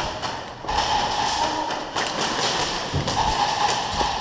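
A player running with gear on, the camera jostling, with a steady mid-pitched hum and a few dull thumps about two, three and four seconds in.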